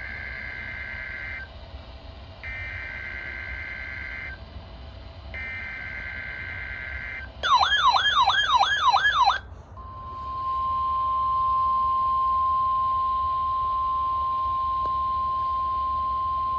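NOAA Weather Radio test signal: three bursts of SAME digital header tones, each about two seconds with short gaps between them. Then a loud, fast warbling alarm for about two seconds, about four sweeps a second, from a receiver set off by the header. About ten seconds in, the steady 1050 Hz warning alarm tone begins and is still sounding at the end.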